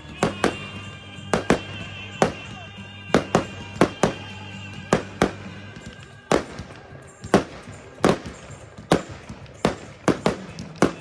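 Aerial fireworks bursting overhead in a rapid, irregular string of sharp bangs, about two a second. Music plays underneath until about six seconds in.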